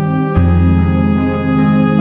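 Instrumental music with sustained organ-like keyboard chords over a held bass note; the chord and bass note change about half a second in.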